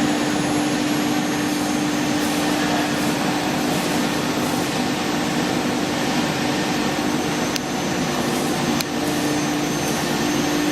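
BMG 1325 CNC router running: a steady whirring noise with a constant hum, unchanging in pitch.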